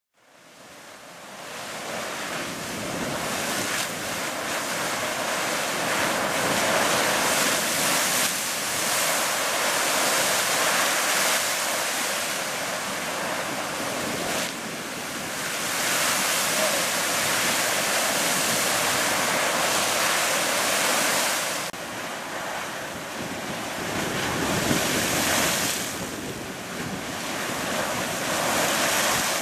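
Fountain Geyser erupting: a steady rush of water and steam, fading in over the first couple of seconds, with wind buffeting the microphone.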